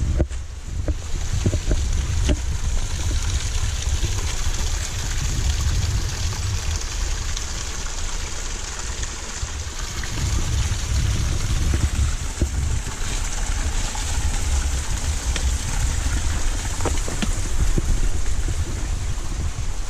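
Wind buffeting the microphone: a gusting low rumble over a steady rushing hiss, with a few faint clicks.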